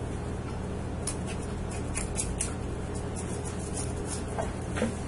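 Metal tool scraping the scales off a raw pink snapper in quick, scratchy strokes against the grain, over a steady background hiss.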